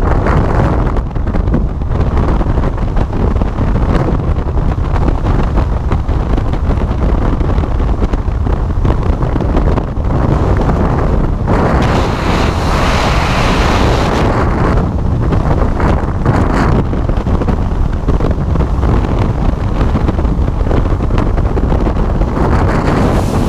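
Freefall wind blasting over a skydiving camera's microphone: a loud, steady rush. About halfway through, for a couple of seconds, the hiss turns brighter.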